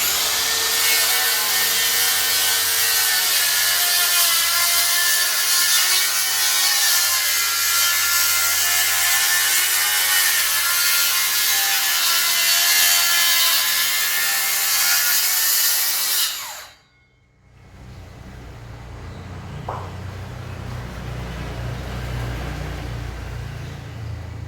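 DeWalt DCS578 FlexVolt cordless circular saw cutting through wood, the motor's whine wavering under load for about sixteen seconds, then stopping abruptly. A quieter low rumble follows.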